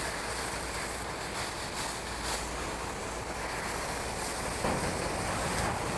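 Water from a fire hose spraying onto smouldering grass and litter: a steady rushing hiss that swells a little near the end.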